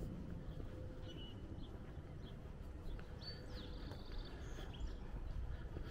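Birds chirping a few short calls, once about a second in and again between about three and four and a half seconds, over a steady low rumble.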